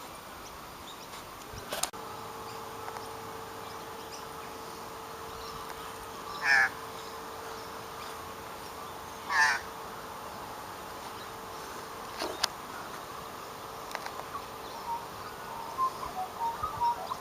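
A bird gives two loud calls about three seconds apart over a steady faint hum, with soft chirps from small birds near the end.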